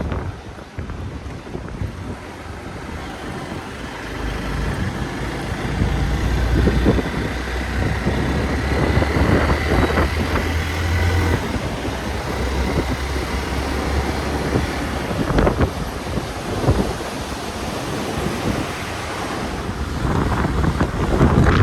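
Hero Xpulse 200 motorcycle's single-cylinder engine running on a rough off-road track, with heavy wind buffeting on the microphone and occasional knocks.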